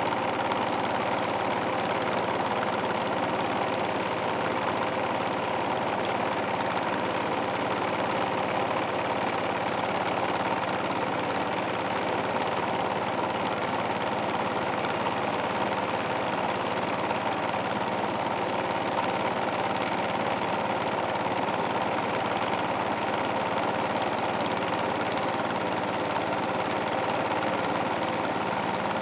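Motorboat engine running steadily with the boat under way, an even, unchanging drone.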